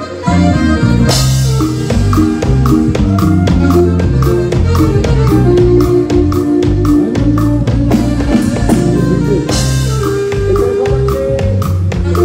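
A live dance band plays a song through a PA: a drum kit keeps a steady beat under bass and held melody notes. A cymbal crash comes as the song kicks in, about a second in, and another near the end.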